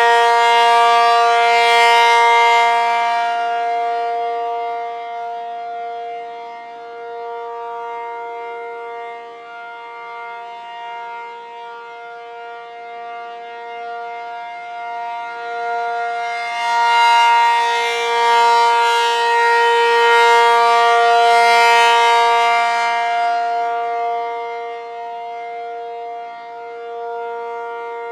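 Outdoor warning siren sounding a steady, unchanging tone with many overtones, its loudness swelling and fading as the rotating siren turns toward and away. It is loud at the start, fades for several seconds, swells again about two-thirds of the way through, then fades.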